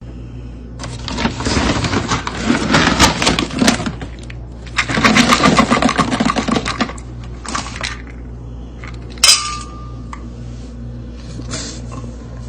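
Hard objects clattering and clinking in two long rattling spells, then a single sharp clink that rings briefly about nine seconds in.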